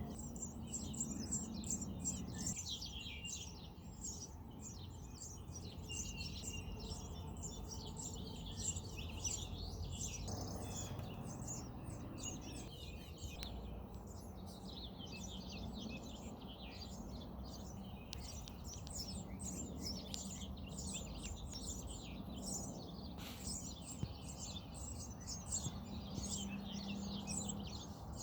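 Birds chirping: a dense, unbroken run of rapid, short, high chirps.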